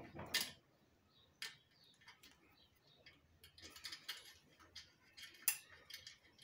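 Scattered light metallic clicks and taps from a small tool and the steel brake cable against a bicycle V-brake arm as its cable anchor bolt is loosened. A sharper click about half a second in, a cluster of small ticks around four seconds, and another sharp click about five and a half seconds in.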